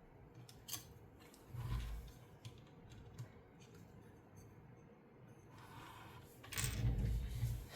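LEGO pieces being handled and fitted together: scattered small plastic clicks and rattles, with dull handling thumps about two seconds in and again near the end.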